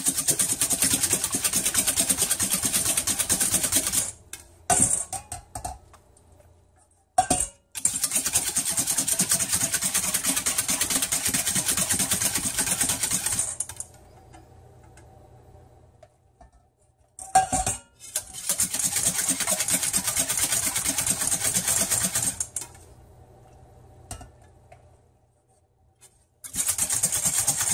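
Wire whisk beating egg yolks in a stainless steel bowl, the tines clattering rapidly against the metal in four bouts of several seconds with short pauses between: tempering the yolks, whipping hard between small additions of hot liquid.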